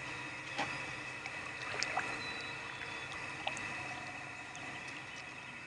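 Water lapping quietly against a kayak's hull, with a few short sharp ticks scattered through.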